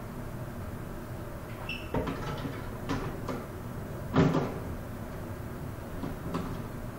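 Knocks and clatter of a glass terrarium's lid and top frame being handled and set in place, several separate clunks with the loudest about four seconds in.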